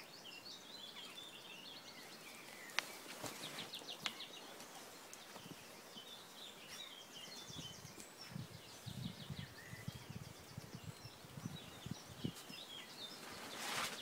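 Small songbirds chirping and trilling in the background, with a couple of sharp clicks a few seconds in. From about halfway, low gusts of wind bump the microphone, and a short rustle comes just before the end.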